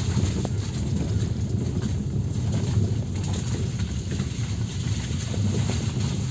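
Car driving over a rough, stony, wet dirt track, heard from inside the cabin: a steady low rumble of engine and tyres on the uneven surface, with a few faint ticks.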